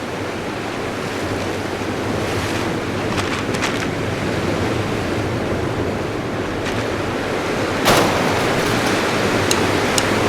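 Steady rush of ocean surf with wind on the microphone, broken by a few light clicks.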